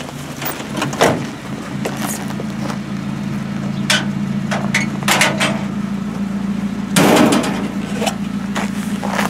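GAZelle van's engine idling with a steady low hum, under a series of knocks and bangs from men in gear climbing out through its open side door; the loudest comes about seven seconds in.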